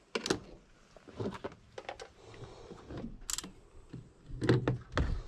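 Scattered light clicks and taps from handling clamp meters and a multimeter and setting test probes against a chrome van bumper, with a louder low thump near the end.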